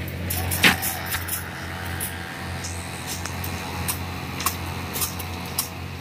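Steady low drone of heavy machinery running at a concrete pour, with scattered sharp clicks and knocks of tools and steel; the loudest knock comes a bit under a second in.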